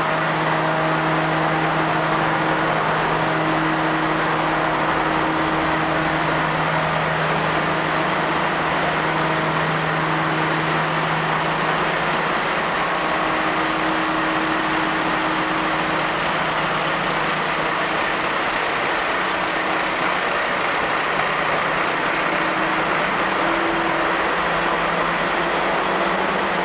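Deutz SBV 9M 628 nine-cylinder marine diesel engines running steadily in the tug's engine room: a loud, constant mechanical din with a low steady hum whose strength wavers now and then.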